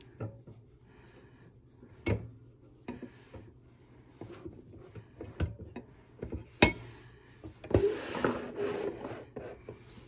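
A cotton pad rubbing over the surfaces of an antique rotary telephone as it is wiped clean, with about six sharp light knocks and clicks as hands and pad touch the phone's hard body and metal cradle. The wiping is loudest for a second or two near the end.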